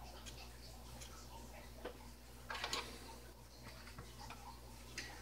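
Faint small clicks and taps of hobby tools and the plastic model kit being handled on a cutting mat, with a brief cluster of louder taps about two and a half seconds in, over a low steady hum.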